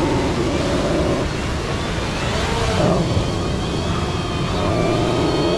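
Quadcopter drone's propellers whining, their pitch rising and falling as the drone holds its hover, over wind noise on the microphone and the surf.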